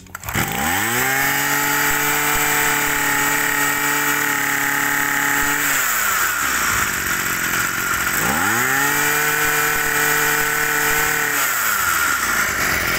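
Small two-stroke engine of a 25cc Tanaka brush cutter, revved to full throttle twice. Each time the pitch climbs quickly, holds high for several seconds, then drops back toward idle.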